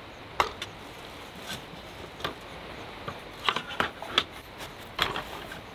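Irregular light clicks and knocks, a dozen or so, with a small cluster of them about three and a half to four seconds in, over a steady background hiss.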